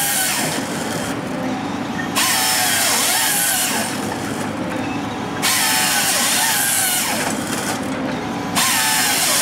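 Woody WH40 harvester head's hydraulic chain saw cutting a log to length. A cut ends about a second in, then three more cuts follow, each about two seconds long and starting roughly every three seconds, with the saw's pitch bending as it runs, over the steady drone of the carrier's engine and hydraulics.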